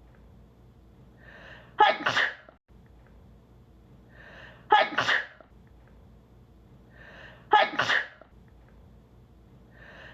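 A woman sneezing three times, each a short in-breath followed by a sharp, loud "achoo". The same sneeze repeats about every three seconds as an edited loop.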